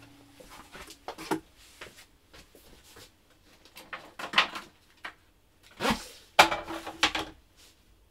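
Rummaging for a tool in a workshop: tool-chest drawers opening and shutting and tools knocking. It comes as several separate clatters, the loudest about six seconds in.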